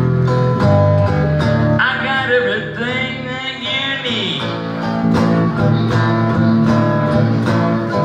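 Electric guitar playing a blues instrumental break between verses, with bent, wavering high notes from about two seconds in until about four seconds in, over a low steady accompaniment that drops out during those bends.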